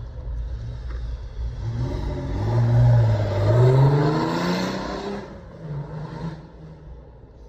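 Off-road truck's engine accelerating: its pitch climbs and it grows louder for a few seconds, then it eases off about five seconds in.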